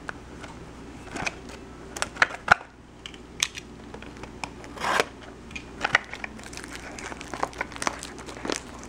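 Packaging of a trading-card box being torn and crinkled open by hand: irregular crackles, rustles and sharp clicks, with a few louder tears.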